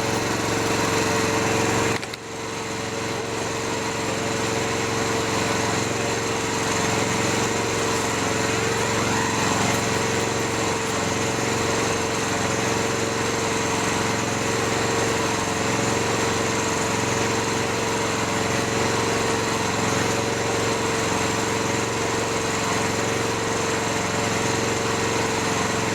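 Mini excavator's engine running steadily, with a steady whine over a rough rhythmic run; it dips briefly about two seconds in.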